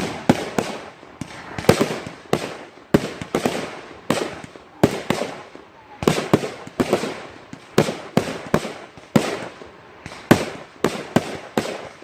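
Consumer fireworks going off in rapid succession: sharp bangs of aerial shells and cakes about once or twice a second, each trailing off in a crackle and echo.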